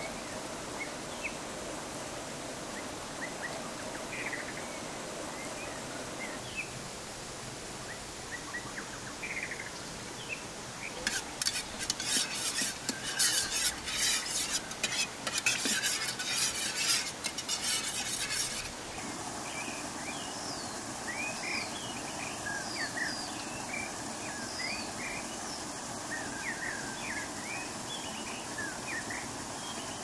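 A metal spoon stirring and clinking against the inside of a small metal camping pot of oily sauce, a rapid run of clinks lasting about eight seconds in the middle. Birds chirp throughout, more often near the end.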